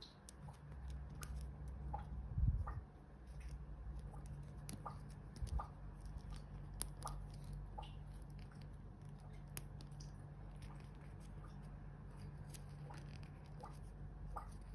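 Fingers handling a small plastic L.O.L. Surprise doll close to the microphone: scattered light clicks and rubbing as a beaded collar is fitted, with a single low thump about two and a half seconds in, over a faint steady low hum.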